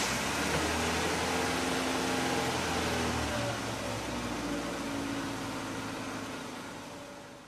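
Motor vehicle engine running, with a steady hum that thins out partway through and fades away over the last few seconds.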